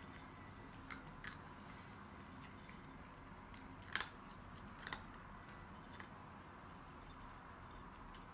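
A cat crunching dry kibble: a few faint, sharp crunches over a low steady hiss, the loudest about four seconds in.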